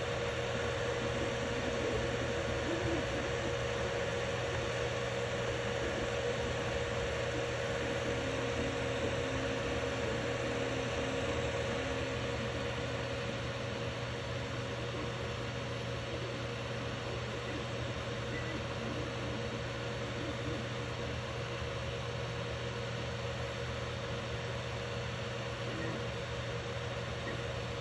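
FDM 3D printer running mid-print: a steady hum and hiss, with faint motor tones shifting in pitch as the print head moves.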